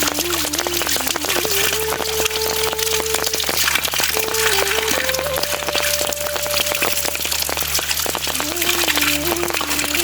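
Background music: a slow melody of long held notes that step up and down, over a steady crackling patter like rain.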